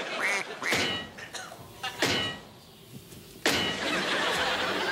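A short honking laugh at the start, then knocks about one and two seconds in. A sudden loud scraping and rumbling starts about three and a half seconds in as a refrigerator is shoved and rocked across the floor.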